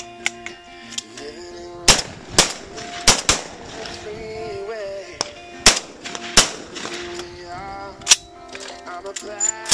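About seven shotgun shots fired at flying doves, mostly in quick pairs, about half a second apart, over background music with a steady melody.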